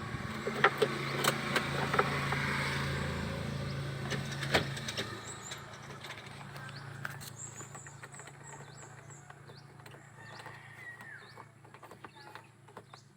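A steady low hum with a few sharp clicks from the Mitsubishi L200 pickup as its key is worked for a start attempt, cutting off with a click about four and a half seconds in. Birds chirp faintly afterwards.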